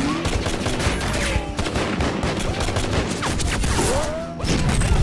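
Rapid series of gunshots, several a second, from target shooting.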